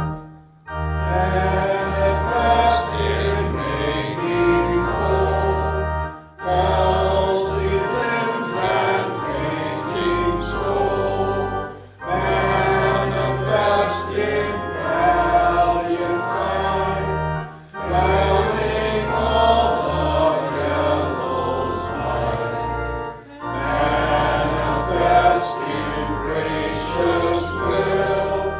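Congregation singing a hymn with organ accompaniment. It goes in phrases of about six seconds, with a short break for breath between each.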